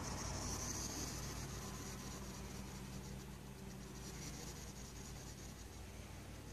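Faint rustling and scratching as a long-haired cat rubs and rolls against a towel beside a hedgehog, over a steady low hum.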